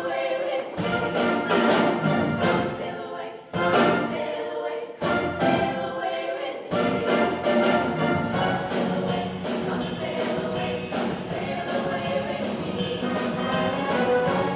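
Show choir singing in full voice with instrumental accompaniment, live in an auditorium. The first half comes in short punched phrases broken by sudden brief stops; the second half runs on unbroken.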